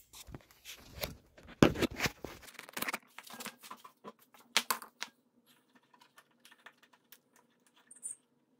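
Handling noise: a string of knocks, clicks and rustles as the camera is picked up and repositioned, the loudest knock about a second and a half in, followed by sparse faint clicks of small parts being handled and a brief squeak near the end.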